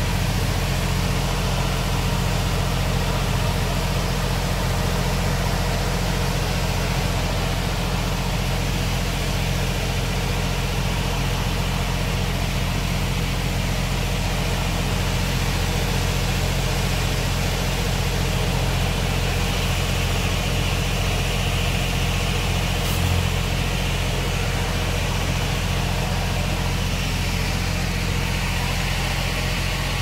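Heavy machine engine idling steadily, a low, even hum that never changes speed. A faint higher hiss joins it about two-thirds of the way in.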